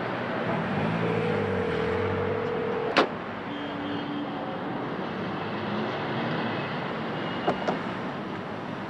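Street traffic noise from passing cars, with a steady tone for about two seconds. About three seconds in comes a sharp clack as a payphone handset is hung up, and there are two light knocks near the end.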